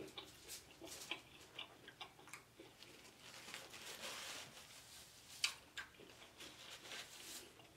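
Faint close-miked eating sounds: lobster being chewed, with scattered wet mouth clicks. About halfway through, a paper napkin rustles as it is wiped over the face, and a sharp click about two-thirds in is the loudest sound.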